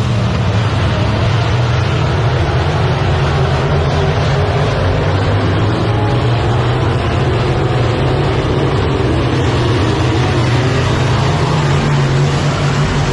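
A pack of dirt-track modified race cars racing around the oval, their engines making a loud, continuous drone with no let-up.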